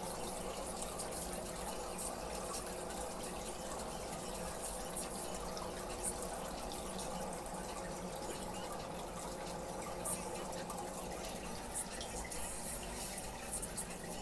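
Steady running and splashing water from an aquarium filter return churning the tank's surface, with a faint steady hum underneath.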